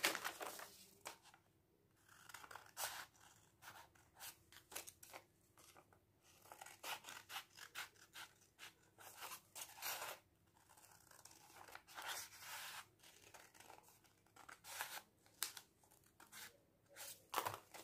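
Small scissors cutting through folded paper: quiet runs of short snips with brief pauses between.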